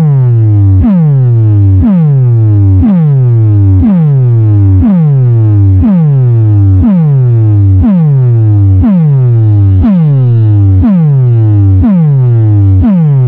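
Electronic music: a loud synthesized bass tone that drops sharply in pitch and then holds, repeating about once a second. It is the kind of bass-drop track played at DJ box competitions to show off a sound system.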